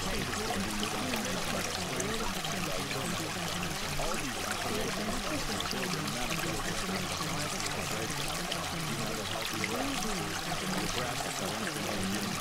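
Steady running water, a stream trickling and gurgling without pause, over a faint steady low drone.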